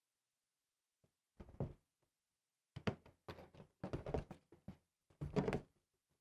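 Handling noise from fitting shoulder straps onto a backpack electrostatic sprayer's hollow plastic tank: a few separate clusters of thunks and rustles as the strap webbing and clips are pulled and knocked against the tank.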